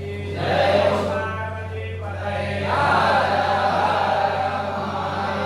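A group of voices chanting a mantra together in unison, in phrases, with a fuller, louder phrase starting a little before halfway, over a steady low electrical hum.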